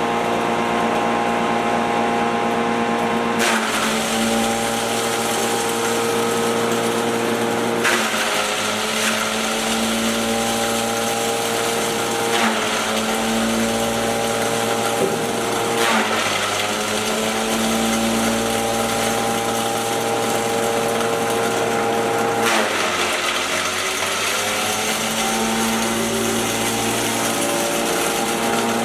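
Electric maize grinding mill running continuously, a steady motor hum under a grinding hiss. About every four seconds the hum dips in pitch with a burst of grinding noise, then climbs back.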